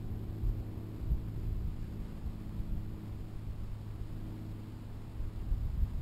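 Wind buffeting the microphone: an uneven low rumble with a steady low hum underneath.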